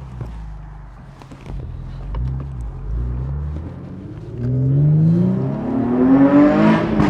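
Infiniti G37's VQ V6 with headers and an aftermarket exhaust, running low for a few seconds, then accelerating hard about four seconds in, its loud exhaust note climbing steadily in pitch until it drops away at the very end.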